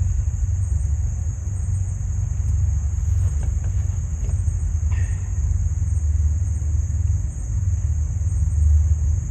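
A steady, fluctuating low rumble under a constant high insect drone, with a couple of faint light taps in the middle.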